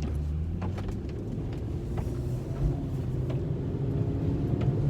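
Car driving with a bad wheel bearing: a steady low drone over the road noise.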